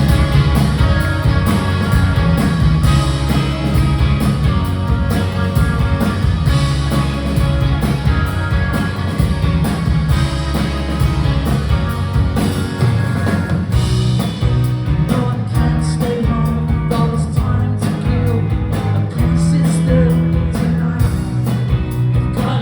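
Live rock band playing a song: guitars over bass and a steady beat.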